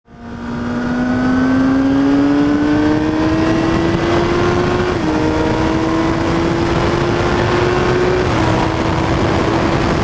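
2006 Kawasaki ZX-10R inline-four accelerating hard through the gears on a Two Brothers Racing M-2 V.A.L.E. exhaust with the catalytic converter deleted, over a steady rush of wind. The engine note climbs steadily, drops at an upshift about halfway through, climbs again and drops at a second upshift a few seconds later.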